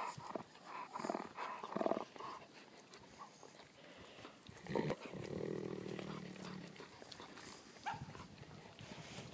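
Wolf hybrids vocalizing during close greeting play: several short whines in the first two seconds, then a longer, lower drawn-out vocal sound from about five to seven seconds in.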